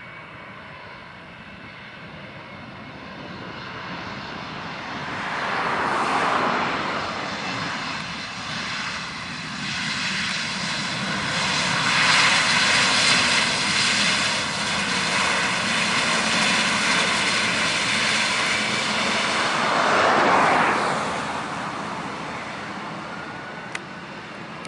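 Airbus A320-family jet's twin turbofan engines passing close on the runway. The engine roar builds, is loudest about halfway through, then fades as the aircraft moves away, with a sweeping, phasing hiss as it approaches and again as it leaves.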